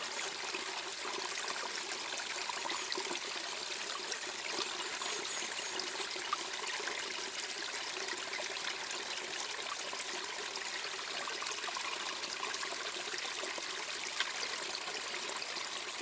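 Steady sound of flowing, trickling water: an even, unbroken hiss with little bass.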